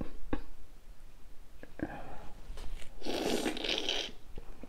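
Wet mouth sounds of eating a sauce-coated seafood-boil lobster tail: a few sharp lip smacks, then a loud noisy slurp lasting about a second, starting about three seconds in as the tail meets his mouth.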